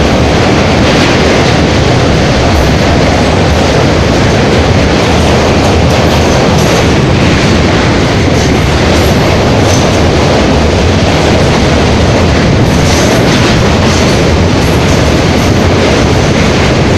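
Passenger train crossing a steel truss bridge, heard from the coach's open window: a loud, steady rumble and clatter of the wheels on the rails.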